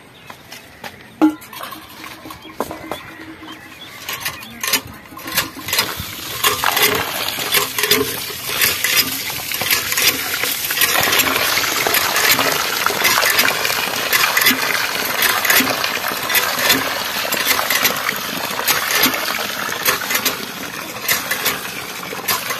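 Rice being washed by hand in water: water sloshing and pouring, with many small clinks, starting quiet and building up about six seconds in.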